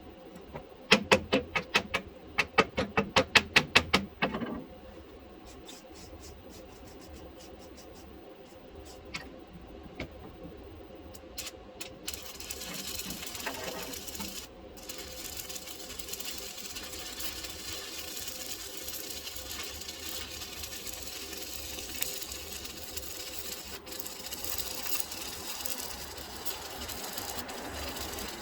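Welding on a water heater: a steady crackling hiss sets in about twelve seconds in. Near the start comes a few-second run of loud, sharp clicks, about four a second.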